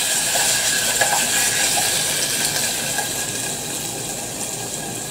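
Sliced beef sirloin in hoisin sauce sizzling steadily in a hot frying pan.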